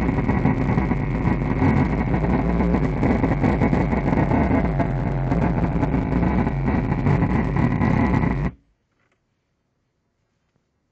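Factory subwoofer of a 2011 Audi S4 blasting at full power with the volume only one notch above zero, a loud, dense sound heaviest in the low end. It cuts off suddenly about eight and a half seconds in, as the volume knob is turned down. This is an intermittent audio-system fault that drives the subwoofer at full output.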